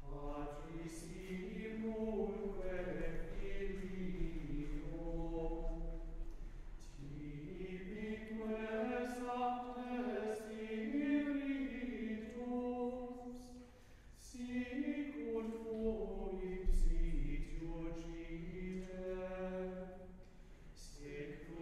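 A small group of men singing unaccompanied plainchant in unison, one melodic line, pausing briefly for breath about 7, 14 and 20 seconds in.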